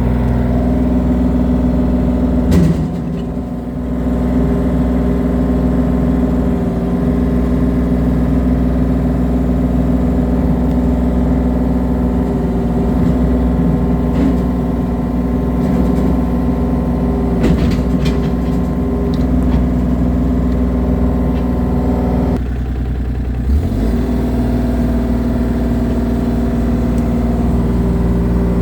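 An engine on a piece of work machinery runs steadily, its pitch dipping briefly twice. A few sharp knocks are heard, one a few seconds in and another about two-thirds of the way through.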